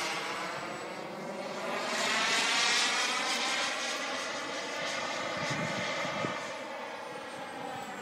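JetCat P140RX model jet turbine running in flight on an RC IAI Lavi, heard from the ground as it passes: a steady rush with a thin high whine. It swells loudest about two to three seconds in, then eases off, and the whine drifts slightly lower in pitch.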